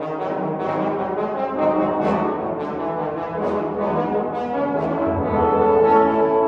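Trombone ensemble accompanying a bass trombone soloist, playing a passage of moving notes that swells into louder held chords about five seconds in.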